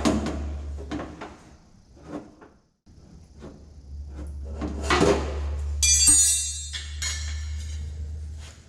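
Body hammer tapping on a steel car door panel: a run of quick, irregular light taps, then harder strikes about five to six seconds in, one of which leaves a bright metallic ring. A steady low hum runs underneath.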